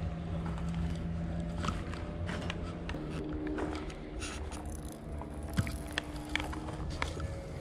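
A motor running steadily, its hum shifting in pitch about three seconds in, with scattered clicks and knocks.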